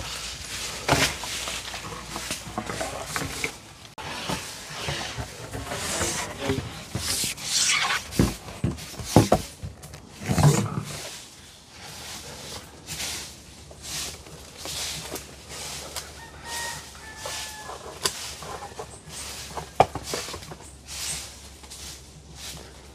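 Leaves and branches of an ackee tree rustling and knocking while pods are worked down with a picking stick, with a cluster of sharper knocks and a thud about eight to ten seconds in.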